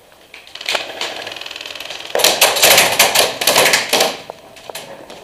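Airsoft rifle firing a rapid full-auto burst of about two seconds, with a few single shots or clicks around it.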